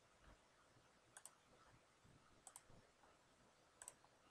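Faint computer mouse clicks: three quick double clicks, each a press and release, about a second and a half apart, as word options are picked and placed.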